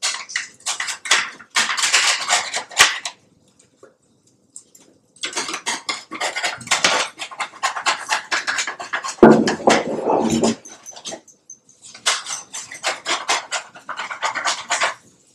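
A dog panting rapidly and close by, in three bouts of quick, even breaths with short pauses between them.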